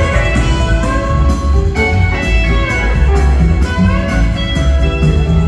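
Live rock band playing through a theatre PA, recorded from the audience: a guitar plays a lead line with bent notes over a heavy, steady bass and drums.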